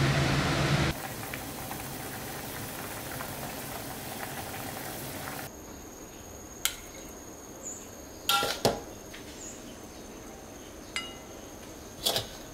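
A few sharp clinks and knocks of a metal spatula against a ceramic bowl as fried rice is served: a single clink, then a small cluster a little past the middle, and another clink near the end. The first part is a steady hiss of kitchen background.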